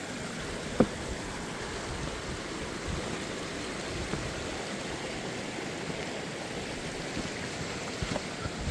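Creek water rushing steadily, with a short knock just under a second in and a few faint ones near the end.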